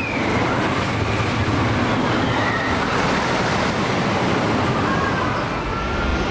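Joris en de Draak wooden roller coaster train rumbling along its wooden track: a loud, steady rumble and roar.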